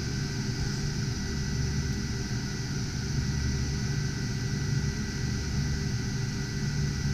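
Steady drone of the cooling fans of GPU cryptocurrency mining rigs running, with a constant low hum and a faint steady high whine.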